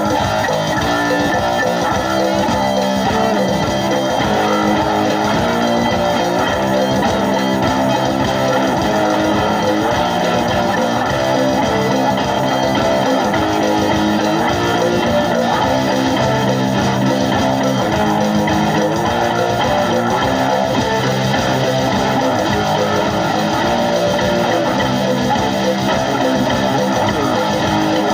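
Guitar music with bass and a steady rhythm, in a rock style.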